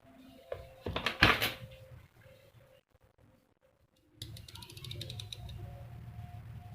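Handling noises of an unboxing: a loud crackly rustle about a second in, then after a pause a low steady hum with a quick run of small clicks.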